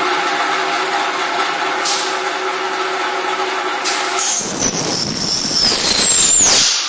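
Roll-forming mill for steel profile tube running with a steady hum and whine. About four seconds in, its automatic cutoff bites into the tube with a loud, rough cutting noise and a high squeal that falls in pitch, stopping after about two and a half seconds.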